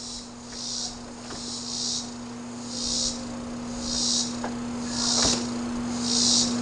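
Ninja Woodfire outdoor grill humming steadily as it ignites its pellets. Over it comes a rhythmic high hissing chirp from an insect, about one pulse a second and growing louder, with a light knock about five seconds in.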